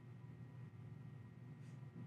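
Near silence: a faint steady low hum.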